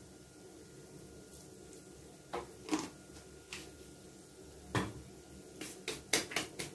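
Kitchen handling sounds at a stovetop: about ten sharp clicks and knocks of utensils, pan or containers being moved, starting a couple of seconds in and coming quickly one after another near the end, over a faint steady hum.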